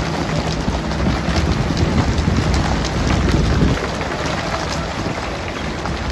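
Steady patter of water drops, like rain on a surface, over a continuous low rumble.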